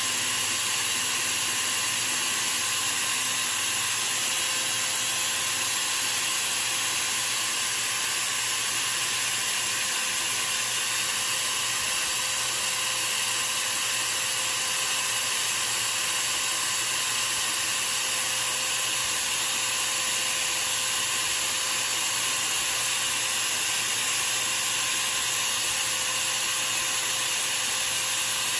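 Small motor spinning a chucked workpiece with a steady whine, while a flat file held against the turning wood hisses continuously as it shapes it.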